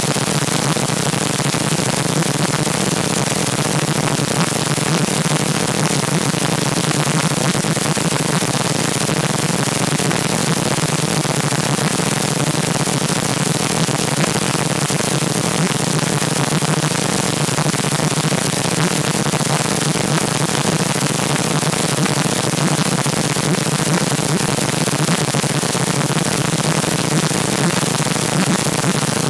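Loud, steady static-like hiss that runs unbroken, with a low hum underneath.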